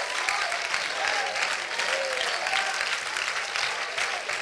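Church congregation clapping steadily, with a few voices calling out over the applause.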